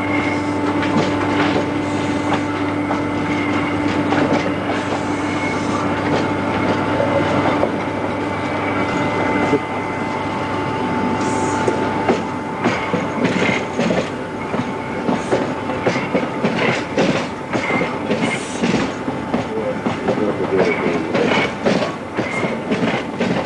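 Yauza metro train (81-720/721) running on surface track. Over the first half a steady hum runs under the running noise and stops suddenly. Then, as the cars pass close, the wheels clatter and click irregularly over the rail joints, with a few brief squeals.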